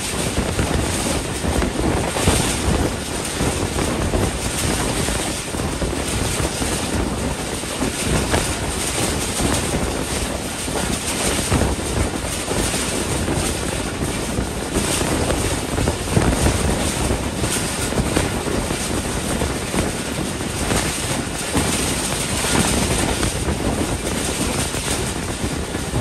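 Steady rush of wind over the microphone, mixed with the running noise of a passenger train coach at speed, recorded from its open door or window. The noise swells and dips a little in gusts, with no distinct wheel clicks standing out.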